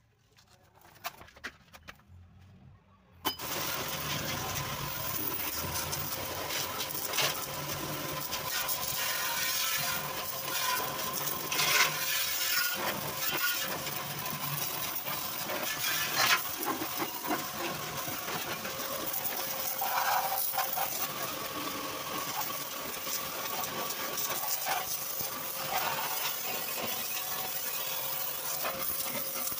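High-pressure washer jet spraying water against a car's underbody: a steady hiss of spray with a steady hum beneath it. It starts suddenly about three seconds in, after a few faint clicks.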